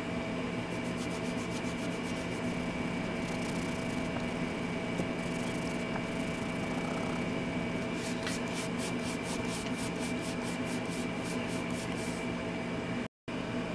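Cloth rubbing back and forth on a plastic nut driver handle, polishing off the residue of the plastic breaking down. It comes in stretches of quick, even strokes, about five a second, over a steady hum.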